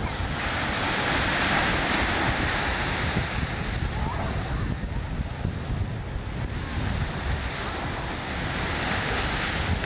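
Ocean surf washing onto a sandy beach, a steady rushing wash that swells about a second in and again near the end, with wind buffeting the microphone as a low rumble.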